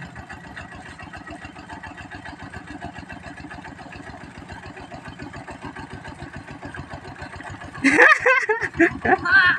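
Kubota diesel engine running steadily with a fast, even beat, then a person's voice breaks in loudly about eight seconds in.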